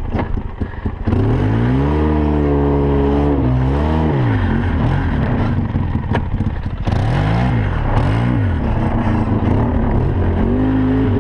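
ATV (four-wheeler) engine revving up and easing off as it drives through deep snow: a long rev about a second in that drops away around four seconds, two short blips near the middle, and another rise near the end. A single sharp click sounds around the middle.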